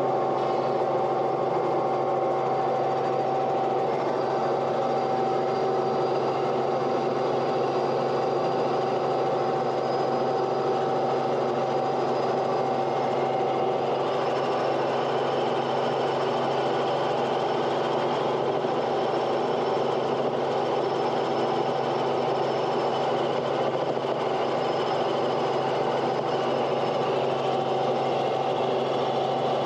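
An engine or motor running steadily: an even drone with a constant whine that does not change pitch or level.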